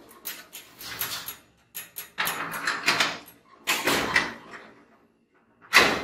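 Garage door section knocked off its track being shifted by hand: several scraping rattles, with a sharp clatter near the end.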